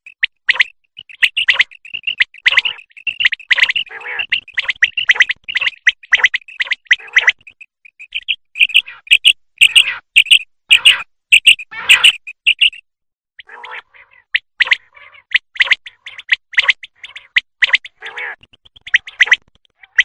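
Common quail calling over and over: sharp, high chirped notes repeated rapidly in dense runs, broken by short pauses about eight and thirteen seconds in.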